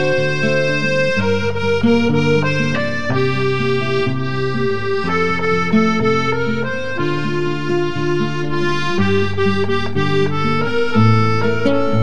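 Accordion music: a tune of held notes over a bass line that changes about once a second.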